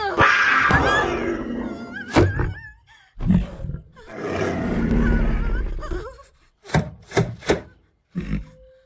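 Puma (cougar) snarls and wavering cries in two long bursts, followed by several short sharp thuds near the end.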